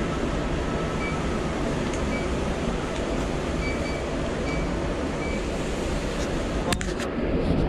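Steady rushing noise of restaurant kitchen ventilation, with several short high beeps through it and a sharp clack near the end.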